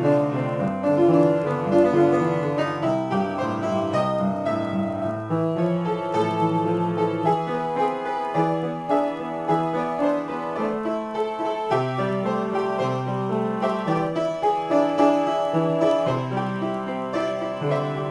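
Solo piano improvisation: chords held over a shifting bass line, with quicker notes played above them.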